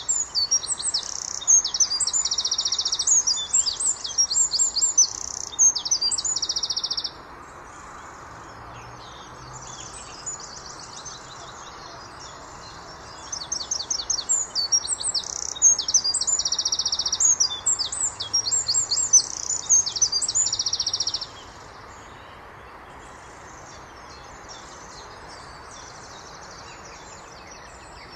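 Eurasian wren singing: two long songs of rapid, very high notes and fast rattling trills, each about seven seconds, with a third song starting at the very end. A steady faint hiss runs underneath, with fainter bird song in the gaps.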